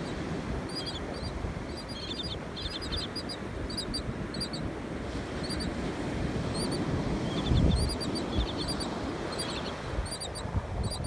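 A bird calling with short, high chirps, again and again and often in quick runs of several notes, over a steady low rumble of wind on the microphone and surf.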